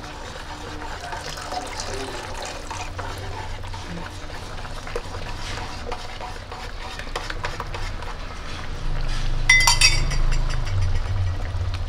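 A spoon stirring cornstarch slurry into a simmering sweet and sour sauce in a metal wok, with liquid swishing and small scrapes and taps of the spoon on the pan as the sauce thickens. A sharp metallic clink sounds near the end.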